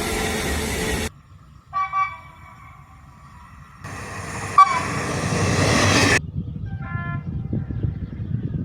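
Train horn sounding a chord in two short toots about two seconds in, with a fainter short toot near seven seconds. Between them a train runs past with a loud, noisy rumble. The sound cuts abruptly several times from one recording to the next.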